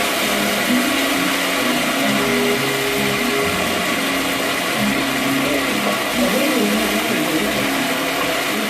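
A small motor running steadily with a loud, even whirring noise, with faint tones underneath that shift in pitch in steps.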